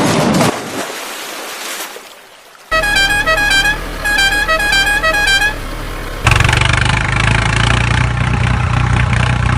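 A vehicle's musical horn plays a short tune of quick stepped notes, then an engine starts running steadily about six seconds in.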